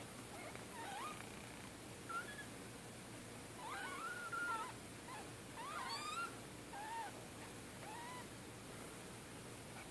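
Newborn kittens, two to three days old, mewing: a string of short, high, wavering cries every second or so, several overlapping and loudest around four and six seconds in.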